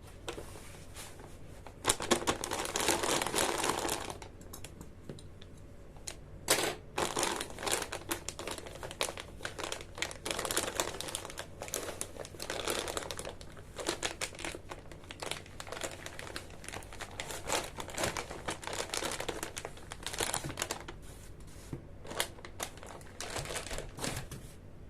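Packaging being handled: crinkling and rustling in irregular bursts, with a longer stretch of continuous rustling about two seconds in.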